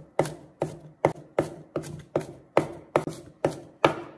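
Chinese cleaver mincing garlic cloves on a wooden cutting board, steady chopping strokes at about two and a half a second.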